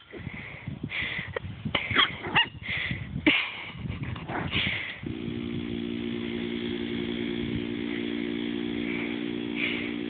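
A puppy yipping a few times in short high calls. About five seconds in, a small engine starts up nearby and then drones steadily.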